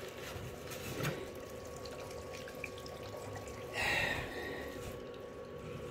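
Water from a tap running through a kitchen sink waste pipe, a steady trickle heard through the opened wall, while the waste's push-fit joint into a soil pipe's rubber boss is tested for leaks. A brief louder noise about four seconds in.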